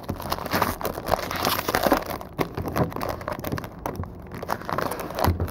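Plastic wrapping crinkling and tearing as a box of trading cards is unwrapped and opened, a dense run of crackles and rustles.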